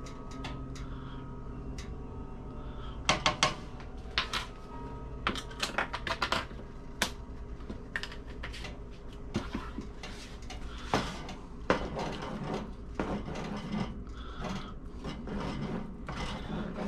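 Kitchen clatter of a measuring spoon and spice jar: sharp clicks and taps, loudest about three seconds in. In the second half a wooden spoon stirs and scrapes through thick chili in a metal pot.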